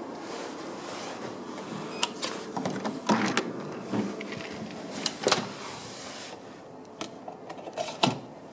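Hotel room door being unlocked and opened: a string of clicks and knocks from the lock and the metal lever handle over a steady background hum, ending with a sharp click as the light switch is pressed.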